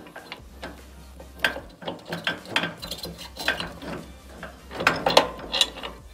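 Hand ratchet wrench clicking in short runs, with metal knocks, as bolts on a truck's front suspension are worked.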